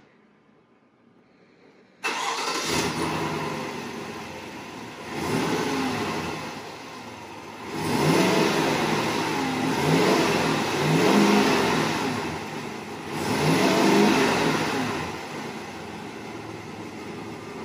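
GMC Sierra's 6.2-litre V8 on its stock exhaust with an S&B cold air intake, starting about two seconds in, then revved up and let back down several times before settling to idle.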